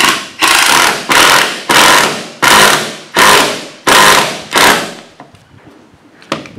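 Cordless drill driving a screw into wooden deck planking in about eight short trigger bursts, each starting sharply and tailing off, over the first five seconds.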